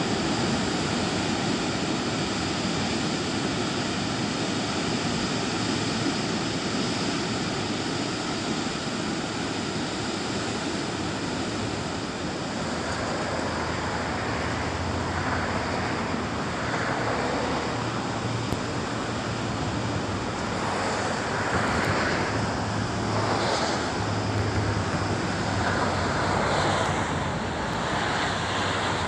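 Ocean surf breaking over rocks at the foot of a sea cliff, a steady rush of waves, with vehicle traffic noise mixed in.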